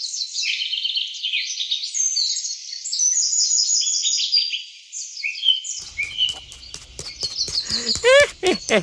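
Birds chirping: many short, quick chirps overlapping one another, high-pitched with nothing underneath. About six seconds in, clicking and swooping, whistle-like tones join.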